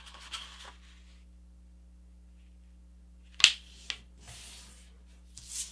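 A sheet of paper being folded in half and creased by hand: a soft rustle at the start, then a sharp paper swipe about three and a half seconds in with a smaller one just after as the fold is pressed flat, and a rising swish of paper near the end.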